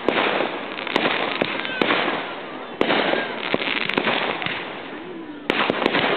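Aerial fireworks going off: a series of sharp bangs about every second or so, each trailed by dense crackling, with the biggest bangs about three seconds in and near the end.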